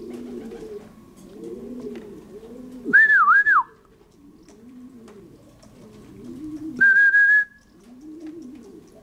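Pigeons cooing continuously in the loft, overlaid by two loud whistles calling the racing pigeon on the roof in: the first, about three seconds in, rises, dips and falls; the second, near seven seconds, is held level.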